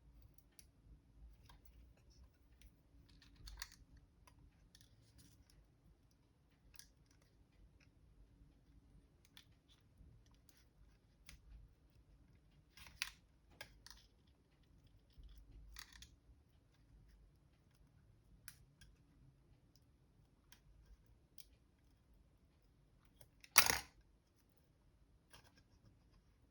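Faint, scattered clicks and taps of small repair tools working on the internals of a 2015 MacBook Pro (A1502) during disassembly, with one much louder sharp click near the end.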